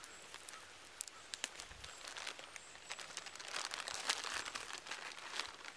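Dry, fluffy plant seed heads crackling and rustling as they are plucked by hand and pushed into a cloth pouch, with many small sharp crackles that grow denser about halfway through.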